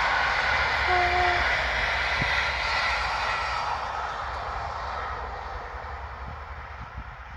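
FPV drone's electric motors and propellers giving a steady high whine that fades away gradually.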